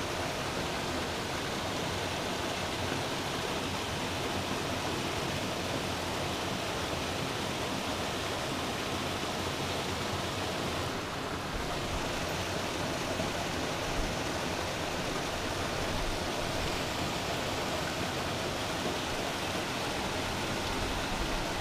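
Small waterfall pouring into a rocky pool: a steady rush of falling and splashing water.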